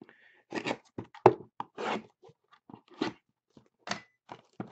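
Hands handling and turning a shrink-wrapped cardboard box of trading cards: the plastic wrap crinkles in short irregular crackles, with a few light knocks of the box.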